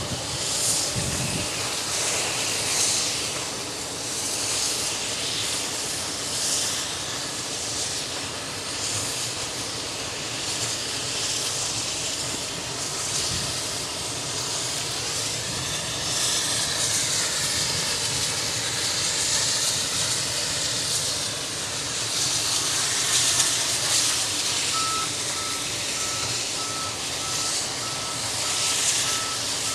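JS-class 2-8-2 steam locomotive working slowly at a distance: steam hiss with slow, regular chuffs about every two seconds. A repeated electronic beep starts near the end.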